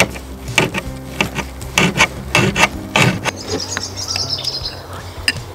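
Carving knife sawing through a roast beef joint in a quick series of strokes, scraping on the serving board, followed about halfway through by a bird chirping briefly.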